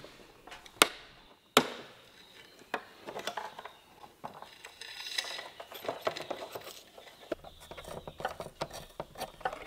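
Hands working apart the plastic halves and flaps of a BMW 2002 heater box: two sharp clicks within the first two seconds, then scattered rubbing, scraping and small clicks of plastic and metal parts.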